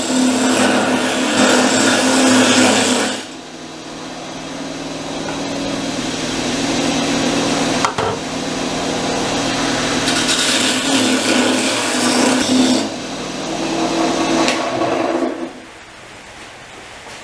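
Wood lathe running with a steady motor hum while a turning tool cuts into a spinning log with bark on it, two loud rough cutting passes with quieter running between. The lathe drops away about three-quarters of the way through.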